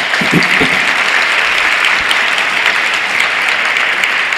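A large audience applauding, many hands clapping together in a dense, steady patter.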